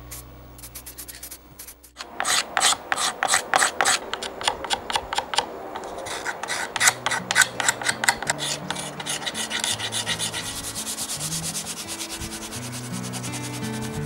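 Hand sanding a red-painted wooden panel of an old coffee grinder, with back-and-forth rubbing strokes. The strokes start about two seconds in, slow at first, then speed up to several a second.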